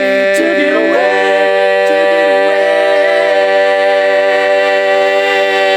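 Barbershop quartet singing a cappella. The four voices move briefly, then settle about a second in onto one long sustained chord, the song's final chord.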